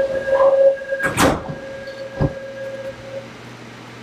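Electric commuter train's sliding passenger doors closing behind a steady door-closing warning tone. The door panels meet with a loud knock about a second in, a lighter knock follows a second later, and the tone stops about three seconds in.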